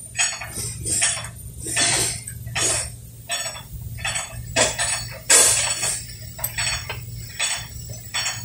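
Metal hand tools clinking and scraping against fittings on a car's underside, irregular strokes a few a second, over a steady low hum.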